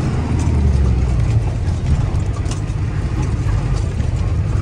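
Truck's diesel engine running steadily under way, heard from inside the cab, with a low, even engine sound.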